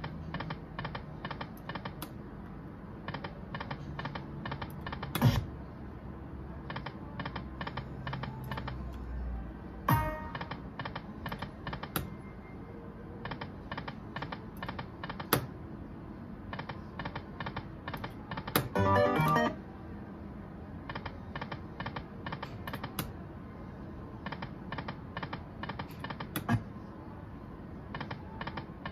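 Dragon Link Golden Century slot machine spinning again and again: each spin gives a quick run of evenly spaced ticks as the reels stop one after another. A few louder single hits come between spins, and a short jingle sounds a little past halfway.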